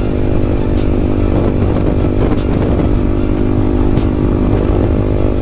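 Yamaha MT15's 155 cc single-cylinder engine running at steady revs under way, through a loud aftermarket exhaust.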